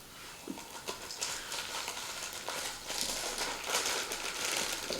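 Dry cake mix being poured from its packet into a mixing bowl: a soft hiss with many small ticks and rustling, growing a little louder toward the end.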